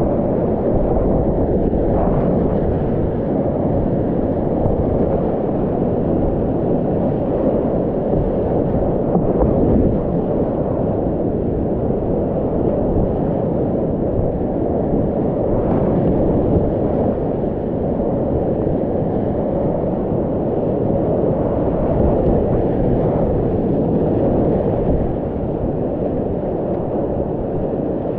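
Whitewater rapids rushing around a kayak, heard from the boat in the middle of the rapid: a loud, steady, low rushing of churning water.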